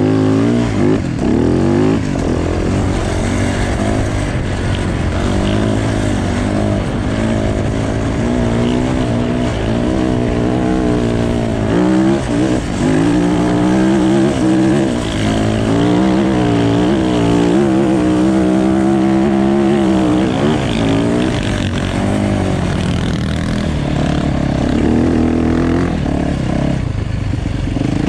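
Dirt bike engine being ridden hard, its pitch rising and falling over and over as the throttle is worked.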